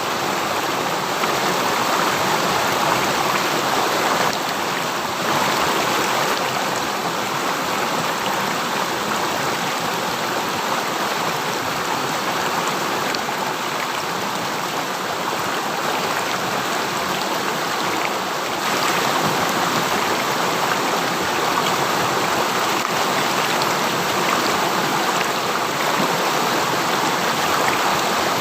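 A river stream running steadily over rocks, a constant rushing and splashing of water.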